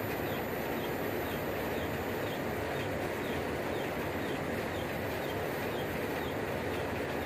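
Steady rushing hum of running shop equipment, with a faint high chirp repeating about twice a second.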